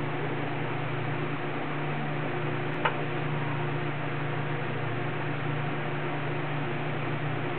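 Steady low hum with an even hiss, and one short, sharp sound about three seconds in.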